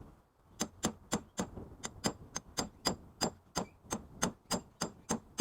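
Steady hammer blows on metal, about three a second, each with a short metallic ring.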